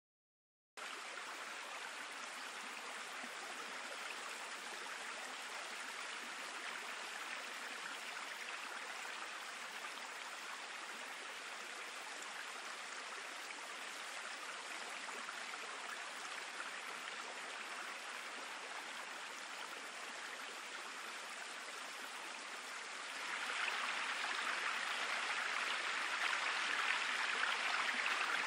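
Synthetic flowing-water sound from an online sound generator, a steady stream-like rush that starts about a second in and gets louder about 23 seconds in.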